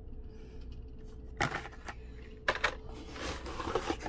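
Handling of blister-carded toy cars: two sharp plastic clacks about 1.5 and 2.5 seconds in, then rustling and scraping as a hand reaches into a cardboard case of carded cars, over a faint steady hum.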